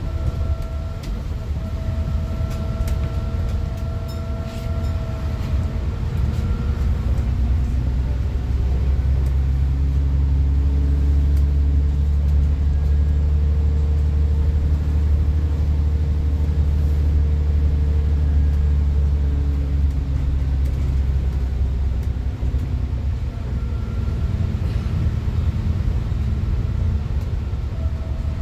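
Alexander Dennis Enviro400 double-decker bus driving, heard from inside the passenger saloon: a steady engine drone with a whine above it. The drone grows louder and heavier for a long stretch in the middle, with the whine climbing and then falling, and it eases back near the end.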